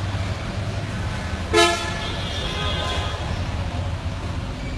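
A short, loud car horn toot about a second and a half in, with a fainter horn after it, over a steady low rumble of traffic.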